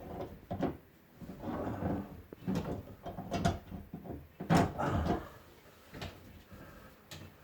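Big channel-lock pliers working a stuck slip nut free on a kitchen sink drain: a run of irregular creaks, scrapes and knocks, loudest about four and a half seconds in, then fading to quieter handling.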